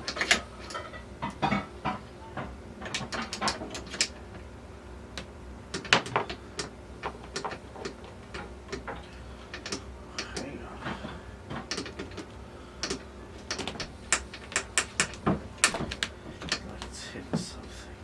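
Steel gearbox parts of a T96 transmission being handled and fitted by hand: scattered sharp metal clicks and knocks, with the busiest clusters about three to four seconds in, around six seconds, and from about thirteen to seventeen seconds.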